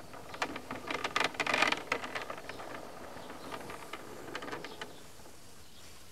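A bonsai turntable being turned by hand, rattling and clicking as the potted tree rotates on it. It is loudest about one to two seconds in, then fainter.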